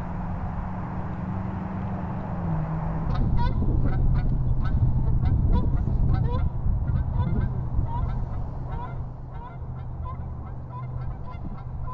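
Repeated short bird calls, one or two a second, starting about three seconds in, over a steady low hum that drops slightly in pitch just before the calls begin.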